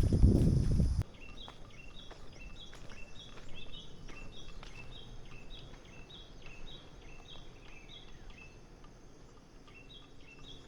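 A bird calling: a short, high, falling note repeated about three times a second, pausing briefly near the end before starting again. It is preceded by a loud low rustle for about the first second that cuts off sharply.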